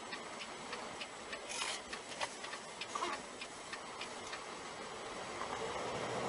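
Rapid regular ticking, about three to four ticks a second, inside a semi-truck cab over steady road noise. The ticking dies away after about four seconds, and truck engine and road noise grow louder near the end.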